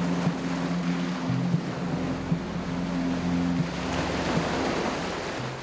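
Shallow surf washing and splashing as a person wades through breaking waves.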